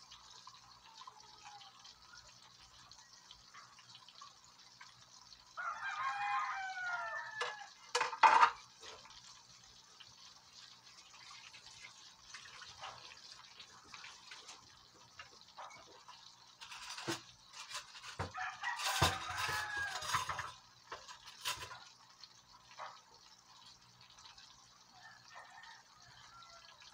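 Oil sizzling steadily as breaded fish fillets deep-fry in a wok. Louder pitched calls stand out over it, about six seconds in and again around nineteen seconds, with a few sharp knocks.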